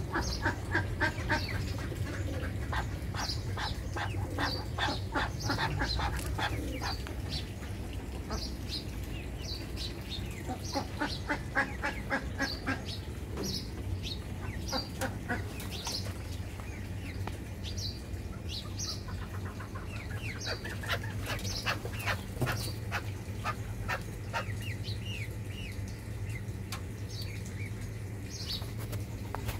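Penned partridges and chickens calling: quick runs of clucking notes with high chirps scattered throughout, over a steady low hum.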